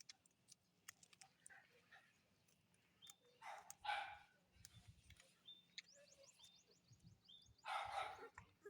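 A dog barks, a short burst about three and a half seconds in and another near the end, with little else but faint background between.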